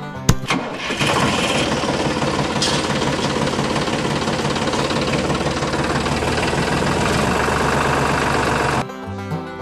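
A sharp click, then about a second in a toy tractor's motor starts running with a steady, dense, rattling engine-like sound that cuts off suddenly near the end.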